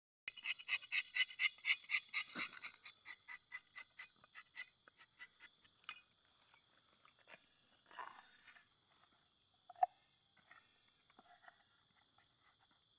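Night insects, cricket-like, chirping in a steady high trill, with a louder pulsing call at about three to four pulses a second over the first five seconds that fades away. A single sharp click comes about ten seconds in.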